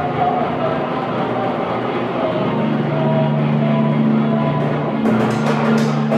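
Live improvised experimental music: a dense, layered texture with sustained low droning tones, joined by quick percussive strikes from about four and a half seconds in.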